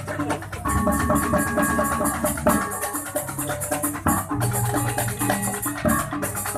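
Balinese gamelan gong ensemble playing a fast, energetic passage: rapid strokes of bronze metallophones over drums, with a busy, shimmering high end.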